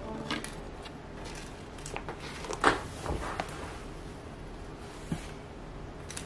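Faint clicks and taps of jumper wires being pushed into a plastic breadboard and handled, with one sharper tap a little under halfway through.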